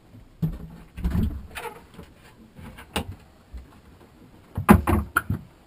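Wooden cabin door on a sailboat being unlatched and opened: a few latch clicks and knocks, with a louder cluster of knocks near the end.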